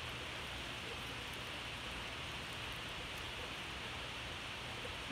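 Steady, even hiss of outdoor background noise with no distinct sounds standing out.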